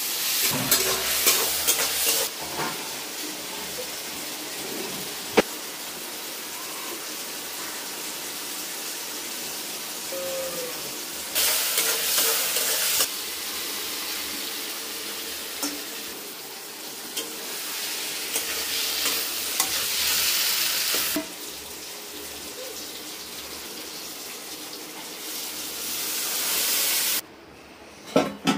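Curry masala frying in a steel kadhai over a gas burner, a steady sizzle stirred with a metal spatula. The sizzling swells louder a few times, then drops away sharply near the end.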